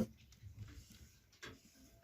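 A sleeping rabbit doe's snoring breaks off right at the start, leaving faint soft sounds and a few light clicks.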